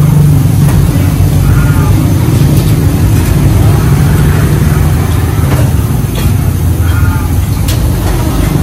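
Steady low engine rumble of vehicles running close by, with a few light clicks of chopsticks against ceramic bowls and faint voices in the background.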